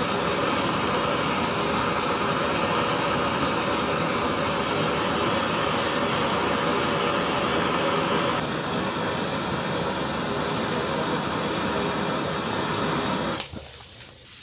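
Handheld gas torch burning with a steady rushing hiss while it heats the copper pipe and brass hose bib joint for soldering. The flame noise cuts off suddenly with a click near the end.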